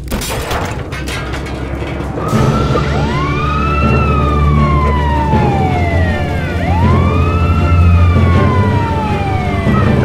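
Fire engine siren wailing, its pitch rising and falling slowly about once every three seconds, over a steady low rumble; it starts about two seconds in, after a stretch of crackling noise.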